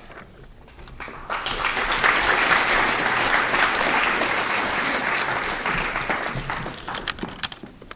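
An assembly audience applauding. The applause builds about a second in, holds steady for several seconds and dies away to a few last claps near the end.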